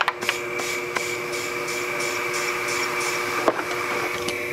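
Air compressor running with a steady hum while compressed air hisses through a hose into a 2-litre soda bottle used as an air reservoir. A single click about three and a half seconds in.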